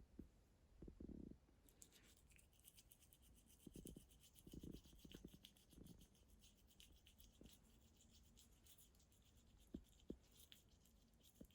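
Faint, quick scrubbing of toothbrush bristles against a cat's teeth, starting about two seconds in and keeping up a rapid back-and-forth, with a few soft low thumps from handling.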